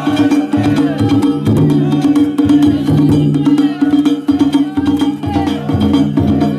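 Danjiri festival music (ohayashi): taiko drums and struck percussion beating steadily, with some gliding melody or voices above.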